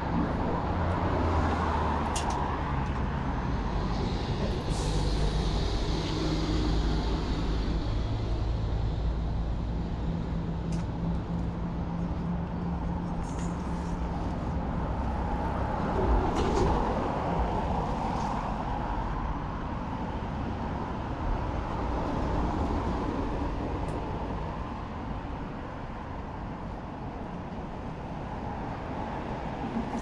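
Road traffic: motor vehicle engines running and passing, with a steady low engine hum through about the first half.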